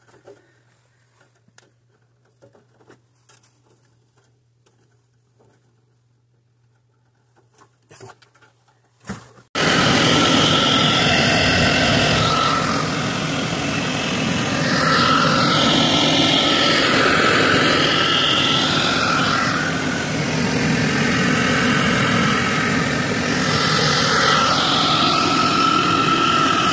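Gas furnace starting up on its new control board: a faint low hum and a few clicks, then about nine seconds in a sudden loud, steady rush as it fires and runs with its burners lit. The furnace firing shows the board replacement has worked.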